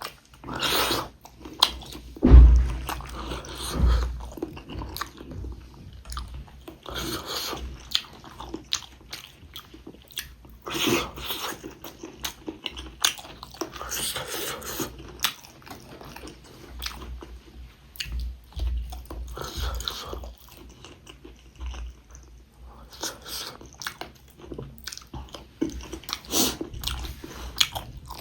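Close-miked eating sounds: irregular bites, chewing and crunches, with two heavier low thumps about two and a half and four seconds in.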